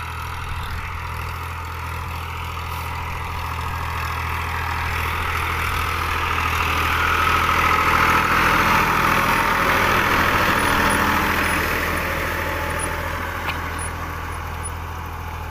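Powertrac 434 tractor's three-cylinder diesel engine running steadily under load while pulling a mounted disc harrow through the crop. It grows louder as the tractor comes closer, is loudest as it passes about halfway through, then fades as it moves away.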